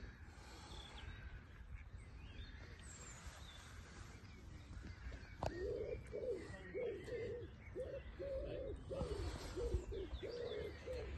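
Birds outdoors: faint high chirping, then from about halfway through a bird's low call repeated about twice a second for several seconds.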